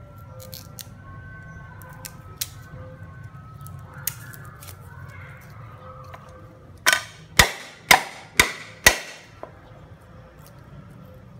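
Meat cleaver chopping garlic cloves on a chopping board: five loud, sharp chops about half a second apart in the second half, then a lighter one. A few light taps of the blade come earlier.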